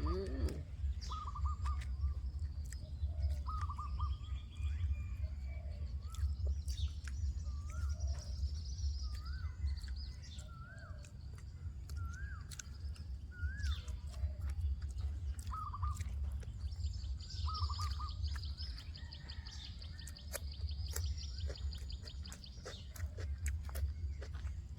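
Birds calling: short chirps repeated every couple of seconds, and a high buzzy trill lasting several seconds in the second half. Underneath is a steady low rumble with scattered sharp clicks.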